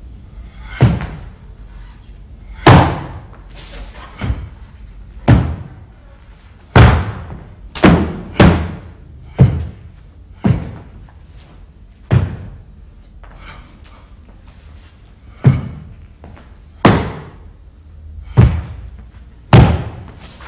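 Hard-soled shoes stamping on a wooden stage floor during a Chinese martial arts form: about fifteen sharp thuds at irregular intervals, each with a short echo.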